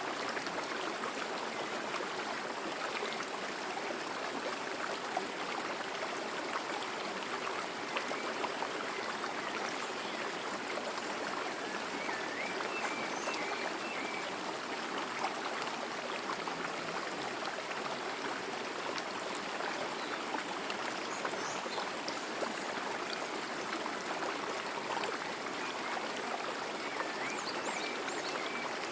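Forest stream flowing over rocks: a steady, even rush and babble of water.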